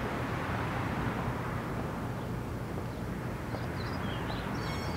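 Steady outdoor background rumble, with a few short, quick bird chirps near the end.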